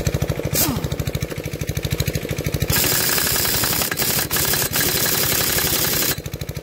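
Air impact wrench hammering for about three and a half seconds, stopping briefly a few times, on a very tight flywheel nut of a Villiers Mk40 engine that will not budge. Under it, an air compressor runs with a steady pulsing beat.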